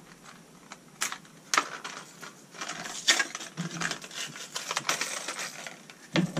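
Plastic fishing-lure package being pried open by hand: a run of crinkling and clicking with a few sharp snaps.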